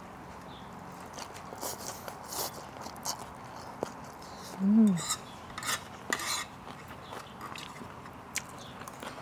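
Eating sounds at a shared plate of khanom jeen rice-noodle salad: utensils clinking against plate and bowl, with noodle slurping and mouth noises in short scattered strokes. About halfway through, a short hummed "mm" rises and falls in pitch, the loudest sound.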